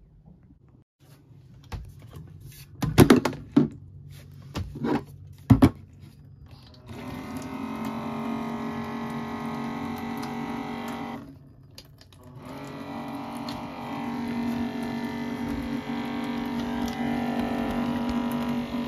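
A few clunks as an electric water-jug dispenser pump is handled, then its small motor runs with a steady hum, pumping water. It stops for about a second, a little past the middle, then runs again.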